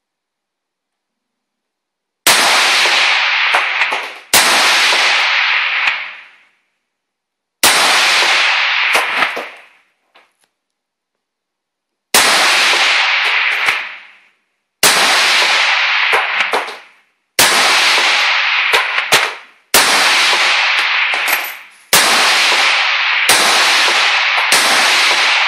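Rifle shots from an AK-style rifle fired as single shots on an indoor range, about ten in all, spaced one to four seconds apart. Each shot is very loud and followed by an echo fading over a second or two.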